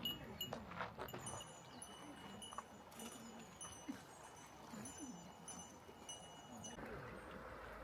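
High, bell-like tinkling: short ringing tones at several pitches, coming irregularly and stopping about seven seconds in, over faint distant voices.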